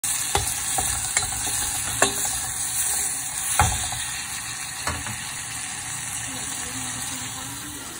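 Chopped tomatoes and spring onions sizzling in a small stainless steel saucepan as a spatula stirs them, knocking sharply against the pan about six times in the first five seconds. The sizzle eases a little after that.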